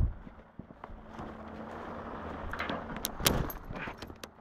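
Footsteps on loose dirt and stones: an irregular scatter of crunches and knocks, sparse at first and thicker in the second half.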